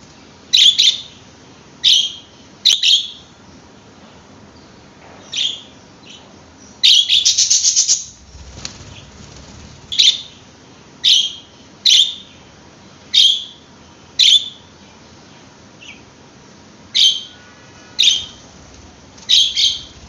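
Budgerigars calling: about a dozen short, sharp chirps spaced a second or so apart, with one longer rapid chattering call about a third of the way in.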